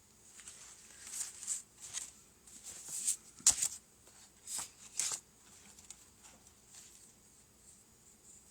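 Thin plastic model-kit hull plating sheets being handled: a string of light rustles and small taps over roughly the first five seconds, then only faint handling noise.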